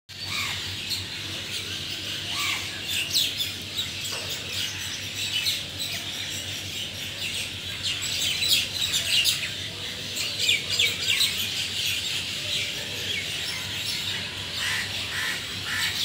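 Many small birds chirping together in a dense, continuous chorus of short, high calls.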